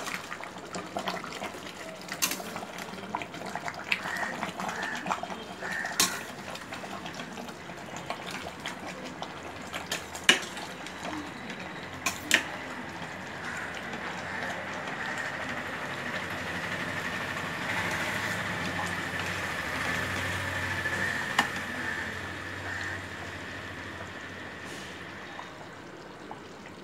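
Tomato rice boiling in an open pressure cooker, a steady bubbling that swells through the middle and eases off near the end. A few sharp clinks of a ladle against the pot come through now and then.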